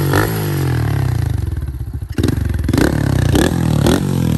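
Apollo 125 dirt bike's small single-cylinder four-stroke engine, just kick-started, running with quick throttle blips. It blips right at the start, the revs settle back toward idle, and then it blips four more times in the last half.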